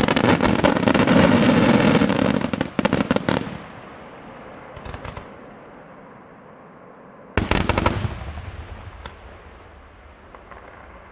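Daylight fireworks: a dense, rapid volley of bangs and crackling that stops abruptly about three and a half seconds in and dies away. A short burst of bangs follows about seven and a half seconds in, with a few scattered single pops between and after.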